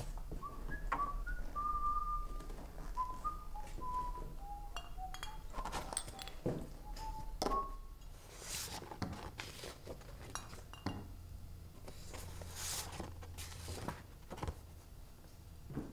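A person whistling a short tune, single clear notes stepping up and down for about seven seconds, followed by scattered clinks and knocks.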